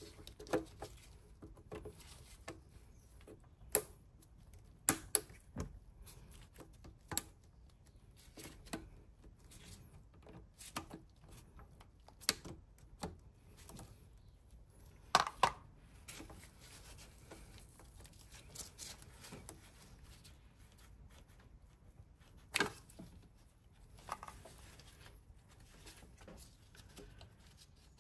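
Scattered clicks and knocks of hands and tools working on plastic and metal engine parts, coming every few seconds at an irregular pace. A few sharper knocks stand out about halfway through and again a few seconds later.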